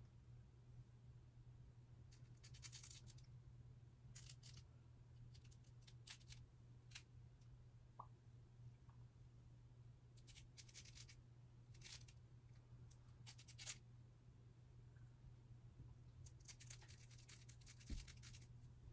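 Faint scratchy strokes of a small razor cutting along a wig's lace frontal, coming in short clusters every few seconds over a low steady hum.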